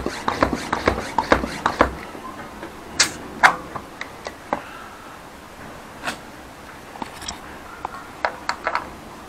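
Bicycle tyre being pumped up: about five quick, even pump strokes, then scattered clicks and taps as the pump and valve are handled.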